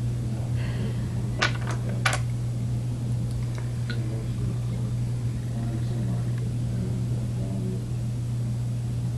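A steady low hum, with two sharp clicks about a second and a half and two seconds in.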